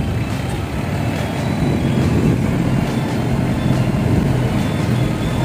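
Steady engine and road noise from a motorcycle riding slowly through street traffic, close behind a small pickup truck.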